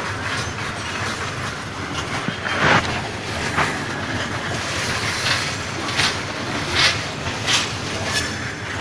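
Goods train of Indian Railways BOXNHL open wagons rolling past close by: a steady rumble of wheels on rail, broken by several sharp clacks from the wheels, the loudest about three seconds in.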